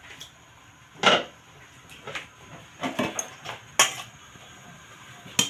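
Metal spoon knocking and scraping against a stainless steel bowl as noodles are pushed out of it into a pot: a handful of sharp clinks about a second apart, with quieter scraping between them.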